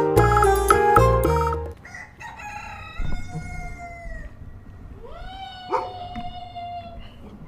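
A short cartoon music jingle ends about a second and a half in, then a rooster crows twice, each crow a long call that holds and then falls away.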